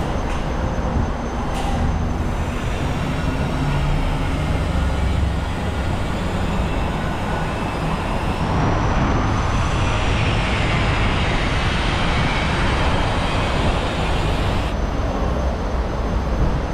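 Steady rumble of vehicle traffic, with a thin high whine that dips and then rises in pitch midway, and a louder hissing stretch in the second half.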